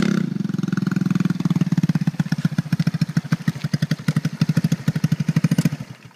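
Small scooter engine idling with a steady, pulsing exhaust beat; the pulses are uneven in strength. The sound dies away near the end.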